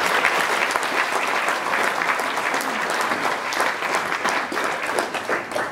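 Audience applauding, a dense stretch of clapping that dies away near the end.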